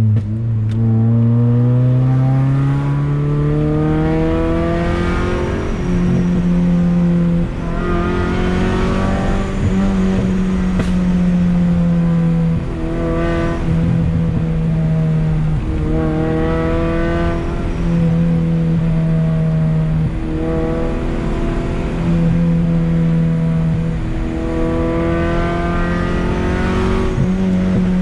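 Honda Accord wagon's F22B1 inline-four engine driven hard through the gears, the revs climbing in a long pull over the first few seconds and then repeatedly rising and dropping back with shifts and lifts off the throttle.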